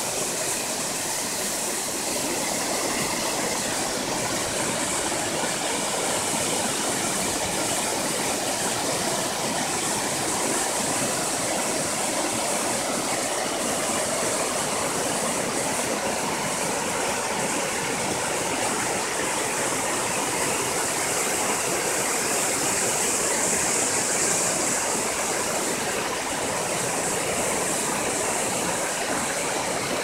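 Waterfall cascading down a sloping rock slab: a steady rushing hiss of falling water.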